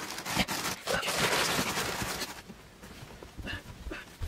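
Crinkling rustle of 10-inch flexible air ducting being opened up and stretched out by hand. The rustle is loudest for the first two seconds or so, then dies down to a few scattered light knocks and rustles.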